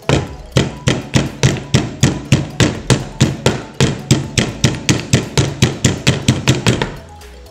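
Stone pestle pounding garlic cloves in a small stone mortar: steady sharp strikes about four a second, stopping about seven seconds in.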